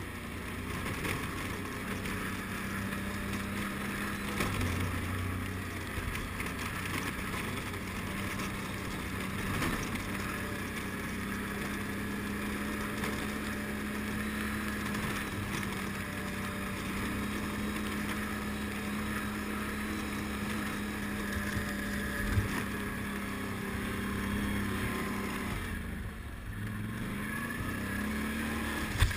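ATV (quad) engine running steadily under load as it climbs a snowy trail, its pitch dipping and rising again in the last few seconds. A single sharp knock comes about 22 seconds in.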